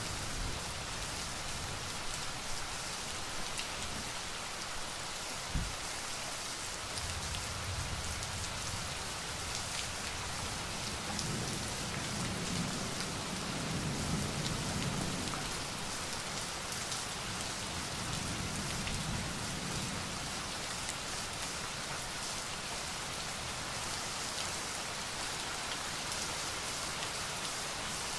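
Steady rain falling on hard surfaces, a continuous hiss of many drops. A low rumble of thunder swells and fades twice around the middle.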